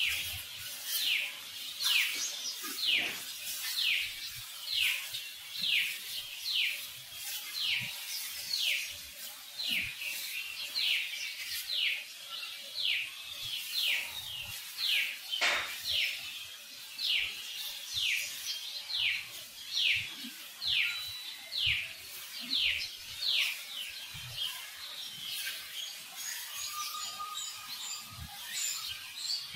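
A bird repeating a short, high call that slides down in pitch, over and over at a bit more than one call a second. The calls grow fainter and sparser near the end.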